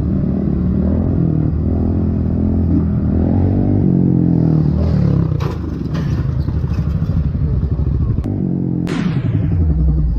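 Motorcycle engine running and revving, heard from the rider's own bike, then crash noises: clatter and knocks about halfway through, and a hard impact near the end followed by a scraping sound that trails off.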